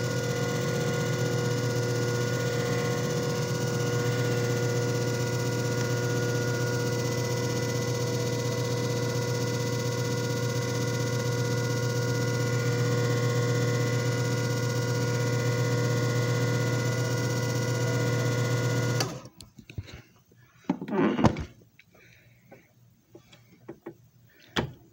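JFJ Easy Pro disc repair machine's motor running with a steady hum, then cutting off suddenly about nineteen seconds in. A couple of brief knocks and clatters follow as the disc is handled.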